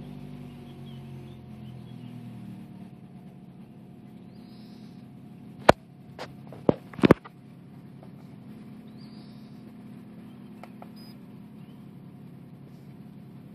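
Opel Astra GTC's Z18XER 1.8-litre four-cylinder petrol engine idling just after start, heard from inside the cabin. The revs waver and sink slightly over the first couple of seconds, then hold steady near 1000 rpm. A few sharp clicks come about halfway through.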